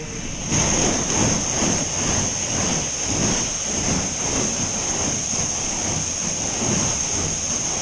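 Fire hose nozzle opened, a loud steady rush of water spraying that cuts in about half a second in.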